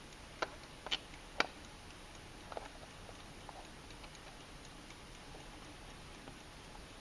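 Vintage alarm clock clicking: three sharp ticks about half a second apart in the first second and a half, a softer double click a second later, then only faint ticks.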